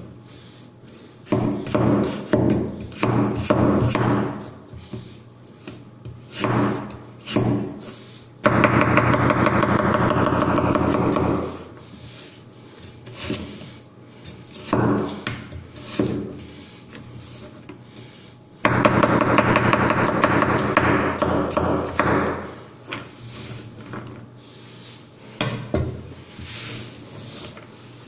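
Victorinox Chinese cleaver chopping carrots on a wooden cutting board: irregular runs of quick knife knocks on the wood. Twice, about eight and nineteen seconds in, a louder steady pitched sound comes in for about three seconds and then fades.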